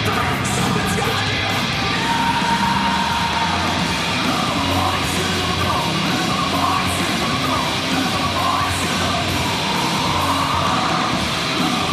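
Loud heavy rock walkout music with yelled vocals, playing steadily throughout.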